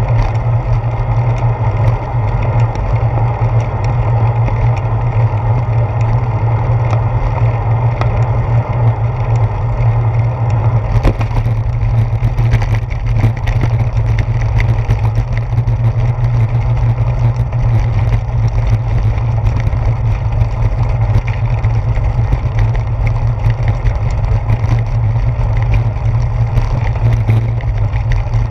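Steady low rumble of wind and road vibration picked up by a handlebar-mounted GoPro as a bicycle rolls along. About a third of the way in, the bike reaches brick pavers and a dense rattle of fine clicks joins the rumble.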